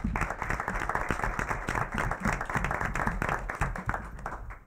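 A small audience applauding with hand claps; the clapping dies away near the end.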